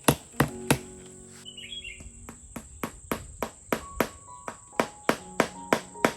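A fast, even series of sharp knocks, about three a second, like chopping or hammering, with a brief lull about a second and a half in. A steady high chirr of crickets runs beneath, with soft background music.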